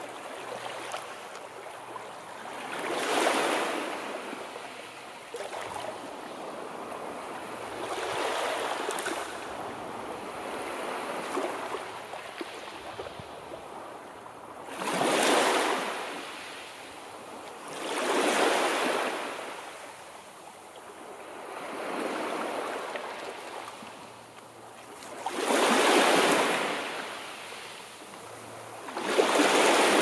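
Sea waves breaking and washing ashore, one swell of surf every three to five seconds, with a steady hiss of water between them.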